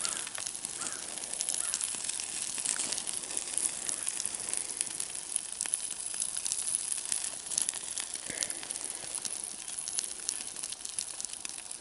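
Burning trash crackling and hissing: a steady hiss packed with many small sharp pops.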